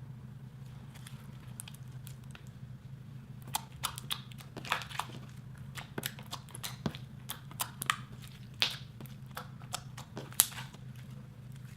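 Clear slime with gold leaf being squished and mixed, giving irregular sticky pops and crackles, most of them between about three and ten seconds in, over a steady low hum.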